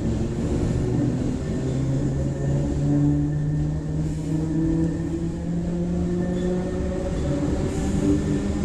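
Traction motors of a CPTM Série 4400 commuter train growling: a steady low hum whose pitch steps up slightly about two and a half seconds in, over rumbling running noise.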